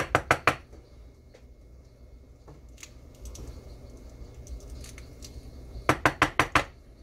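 Primer pocket brush scrubbing inside the primer pocket of a fired 300 Winchester Magnum brass case to clear out residue: a quick run of about four scraping strokes at the start and about five more near the end, with faint scratching in between.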